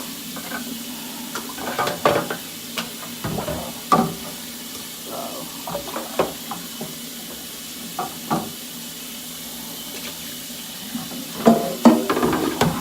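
Kitchen tap running steadily into the sink, with scattered clinks and knocks of dishes and pots being handled; the clatter picks up near the end.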